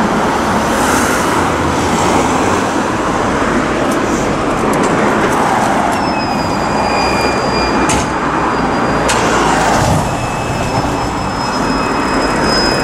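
Street traffic with car engines running, a steady rushing noise. A thin high whine comes in about six seconds in and again from about ten seconds, with two sharp clicks around eight and nine seconds.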